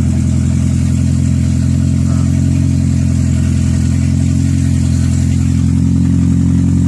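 A 2006 Toyota Prius's 1.5-litre four-cylinder petrol engine running steadily. It now runs after a couple of litres of fuel were added: the no-start with code P3193 came from an empty tank that a stuck fuel gauge had hidden.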